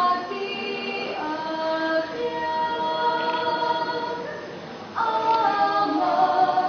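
Female vocal quartet singing a cappella in harmony, with long held notes. The singing drops softer about four seconds in and comes back louder a moment later.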